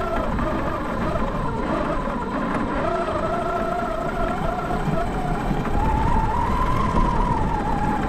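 Large RC monster truck's motor and drivetrain whining as it drives through snow. The whine wavers in pitch with the throttle, dropping a few seconds in and climbing again later, over a steady rumble of the tyres and chassis bouncing on the snow.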